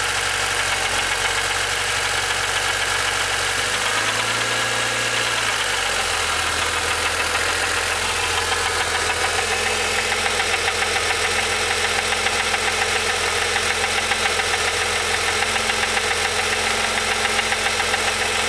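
Honda D-series engine idling with a rebuilt S20 manual transmission making a gritty grinding noise. The owner says this noise goes away whenever the clutch is pushed in, which points to the gearbox rather than the engine. The low engine tone shifts about four to six seconds in.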